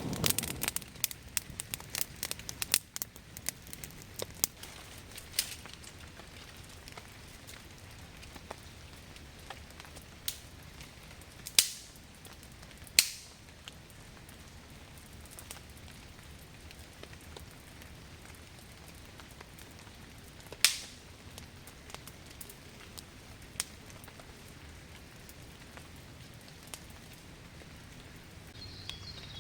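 Campfire crackling: a quick run of small crackles from the burning wood, then a few loud single pops well apart.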